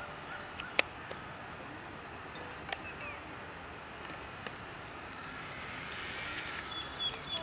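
Outdoor park ambience with steady background noise, a single sharp click about a second in, and a bird giving a quick run of about eight high chirps. Near the end a high hissing buzz swells for about a second and a half.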